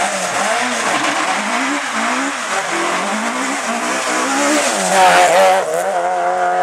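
Ford Puma rally car's engine revving hard as it launches from the stage start and accelerates away, its pitch rising and falling through the gears and loudest about five seconds in. Other rally car engines run steadily behind it.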